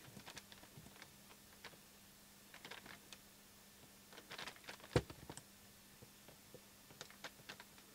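Faint scattered clicks and scrapes of multimeter test-probe tips tapping on the solder pads of a vacuum suction-fan motor's stator board, with one sharper click about five seconds in.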